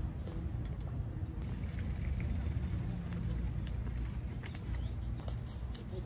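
A low steady rumble with faint crinkling and ticking as a strip of athletic tape, its paper backing peeled off, is handled and pressed onto a hand.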